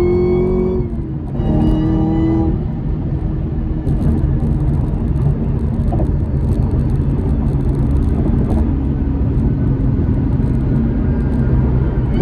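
A car being driven, with steady engine and road rumble. A held pitched tone with overtones sounds over it for the first two seconds or so, breaking off briefly about a second in.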